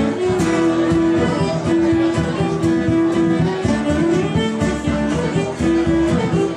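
Live Scottish folk tune on fiddle, acoustic guitar and bodhrán: the fiddle plays a melody of long held notes over strummed guitar chords and the bodhrán's beat.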